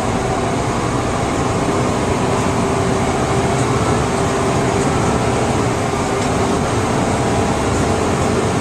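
Fire engine driving slowly, heard from inside its cab: a steady engine drone with road noise.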